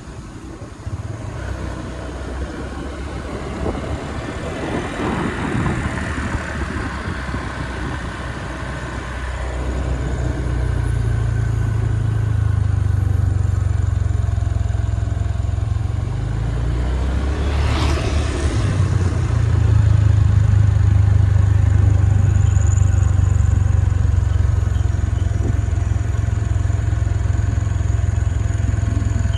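A motor vehicle's engine running while driving, a steady low drone that grows louder about ten seconds in.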